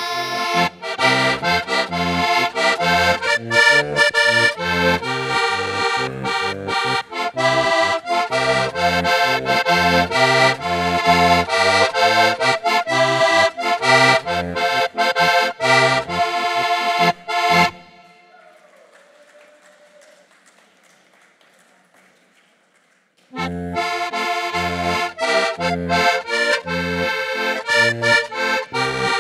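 Heligónka, the Slovak diatonic button accordion, playing a lively folk tune over a steady beat of bass notes. The playing stops abruptly about two-thirds of the way through and picks up again after a pause of about five seconds.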